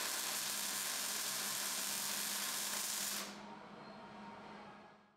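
A loud, steady hiss that stops abruptly about three seconds in, leaving a fainter hiss that fades out.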